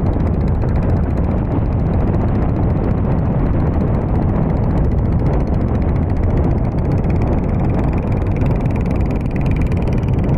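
Small boat's motor running steadily under way, a dense, even low rumble.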